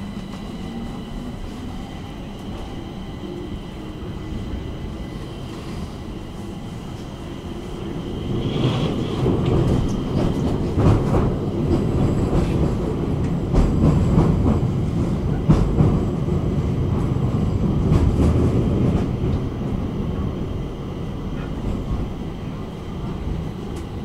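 Stockholm metro train heard from inside the carriage: its electric motors whine as it picks up speed. From about eight seconds in, the wheels rumble louder on the rails with repeated clicks and knocks over the track.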